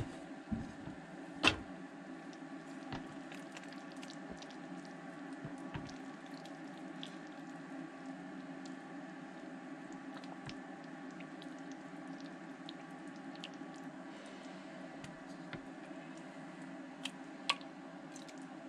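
A wooden spoon stirring and scooping thick, wet slow-cooked stew in a crock pot, with small clicks and scrapes. There are two sharp knocks, one about a second and a half in and one near the end, over a steady low hum.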